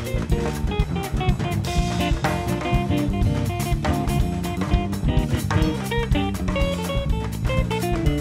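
Live Brazilian jazz band: a semi-hollow electric guitar plays quick single-note lines over drum kit, percussion and bass guitar.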